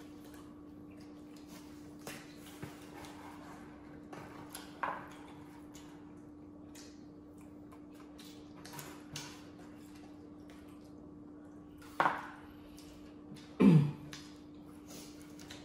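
Mouth sounds of people eating pizza and chicken wings: scattered soft clicks and smacks of chewing over a steady low hum. Two short louder sounds come near the end, the second dropping sharply in pitch.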